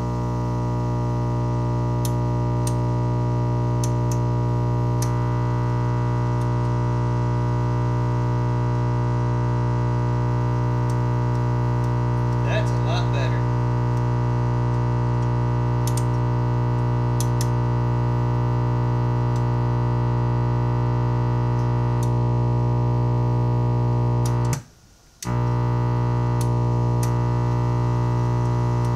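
Antique Sears Silvertone tube radio, just powered up after a recap, putting out a loud, steady buzzing hum through its small test speaker. The hum cuts out for about half a second near the end, then comes back.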